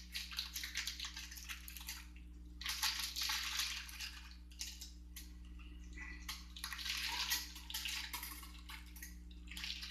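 Beeswax pellets being poured into a container: a grainy, rattling hiss with scattered small clicks, heaviest in two longer pours about three seconds and seven seconds in.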